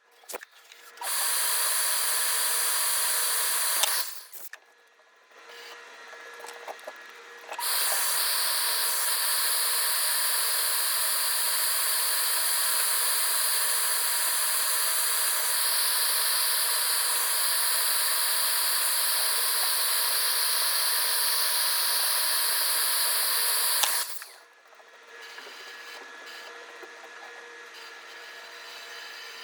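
A machine running with a steady, loud hiss and a thin high whine, briefly at first and then for about sixteen seconds, cutting off sharply each time. The whine shifts pitch slightly a couple of times during the long run.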